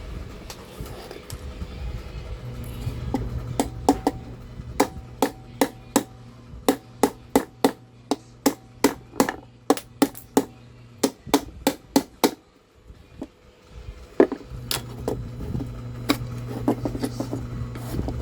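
A run of sharp taps and clicks, about two to three a second, as a metal tool pries and scrapes hardened glue to free a circuit board from an aluminium heatsink. The taps pause briefly about thirteen seconds in, and a low steady hum runs beneath.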